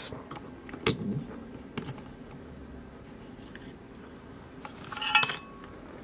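Small metallic clicks and clinks from a brass euro cylinder lock being handled, freed from its holder and set down: single clicks about one and two seconds in, then a quick cluster of clinks with a brief ring about five seconds in.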